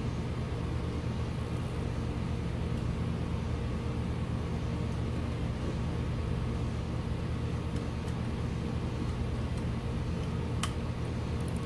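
A steady low mechanical hum, with a few light clicks about ten and a half seconds in as the horn button is pressed into the steering wheel hub.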